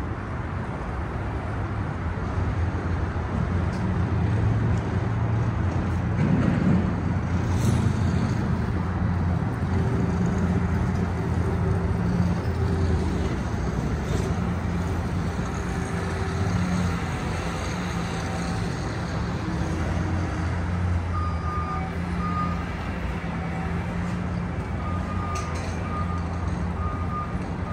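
Street traffic with a large vehicle's engine running steadily. From about twenty seconds in, a short high beep repeats at regular intervals.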